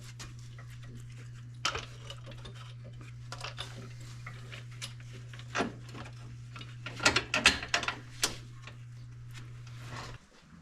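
Hand tools clicking and clinking on metal, with ratchet-like ticks, during work on a side-by-side's sway bar; the clicks come thickest about seven to eight seconds in. A steady low hum runs underneath and stops shortly before the end.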